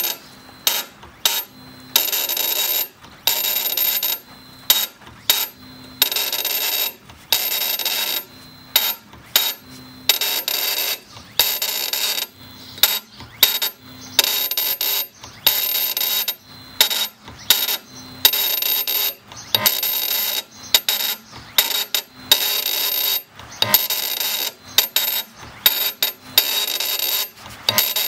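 CNC granite engraving machine cutting stone, a loud, high-pitched scraping hiss that starts and stops in irregular bursts as the spinning bit engages and lifts from the granite, over a steady faint spindle whine.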